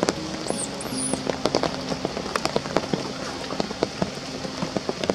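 Rain falling on wet stone and leaves: a steady patter with many sharp, irregular drop ticks.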